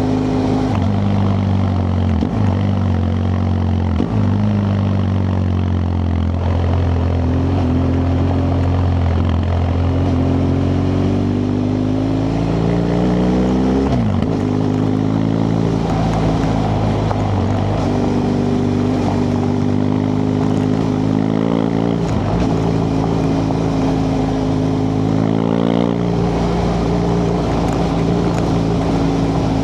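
BMW F 800 GS parallel-twin engine running under way on a dirt road, revs rising and easing off with several quick gear changes.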